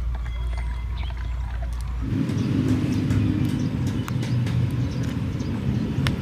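A motor running steadily with scattered clicks and rattles; about two seconds in its sound abruptly shifts to a louder, higher drone.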